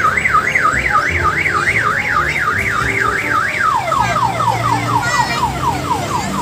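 Electronic siren on an odong-odong mini tourist train, sounding a fast rising-and-falling warble about three and a half times a second. Near the middle it switches to a quicker run of short falling yelps.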